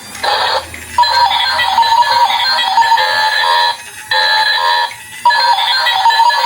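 Electronic tune from a toy's small speaker, thin and tinny with no bass, playing in stretches broken by short pauses.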